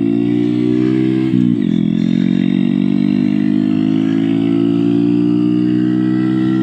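Honda Grom's 125 cc single-cylinder engine pulling under way, its pitch climbing steadily. About a second and a half in, the pitch drops sharply as the rider shifts up a gear, then it climbs slowly again.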